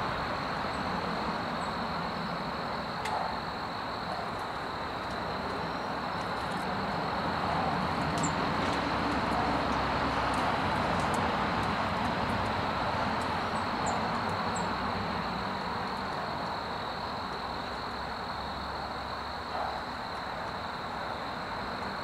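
Steady rush of distant road traffic, swelling and easing slowly, under a steady high-pitched drone. A few faint, short, high bird chirps come through in the middle.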